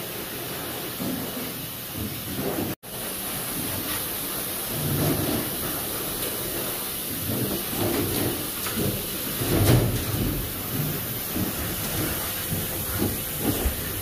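Pet-wash station's forced-air blow dryer blowing a steady hiss through its hose. Short lower-pitched sounds come and go over it, the loudest about ten seconds in. The hiss cuts out for an instant a little under three seconds in.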